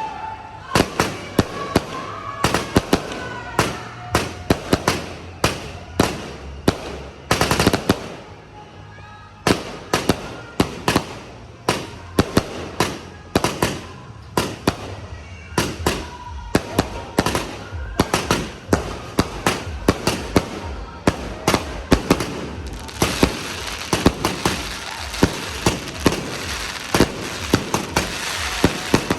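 Fireworks going off at close range: rapid, irregular loud bangs several a second, with short whistles in the first few seconds and a denser crackle over the last several seconds.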